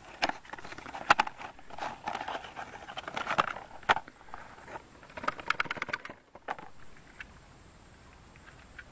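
Coghlan's emergency stove being unpacked: the cardboard box rustles and the folding metal stove clicks and scrapes as it is pulled out, in a run of irregular clicks that stops about two-thirds of the way through.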